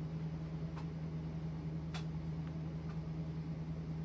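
A steady low hum with a few faint ticks, the clearest about two seconds in.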